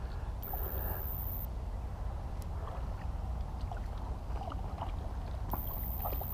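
Water sloshing and splashing around a wading angler, over a steady low rumble, with two brief high-pitched whines, one about half a second in and one near the end.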